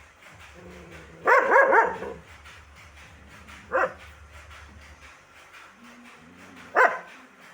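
Dog barking: a quick run of several barks about a second in, then two single barks a few seconds apart, over a faint low hum.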